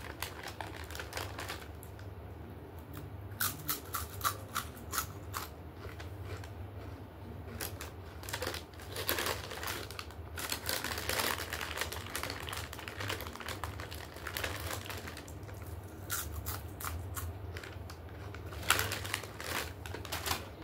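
Close-mouthed crunching and chewing of white shell stone: runs of sharp, crisp crunches, a quick string about three seconds in, denser crunching in the middle and another run near the end, over a steady low hum.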